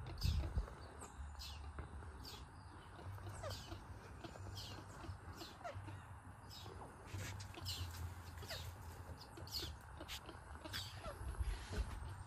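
Outdoor wildlife chorus: many short, high chirps repeating steadily over a low rumble, with one louder thump just after the start.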